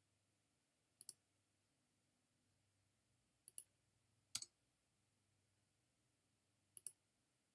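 Computer mouse button clicked four times at uneven intervals, some clicks heard as a quick press-and-release pair, with near silence in between.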